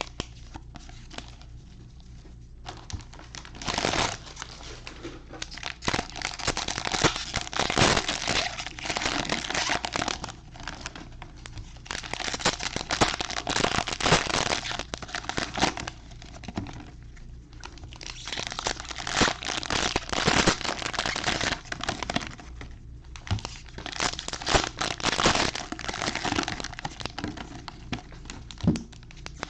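Foil trading-card pack wrappers being torn open and crinkled by hand, in irregular bursts of crackling with short pauses between.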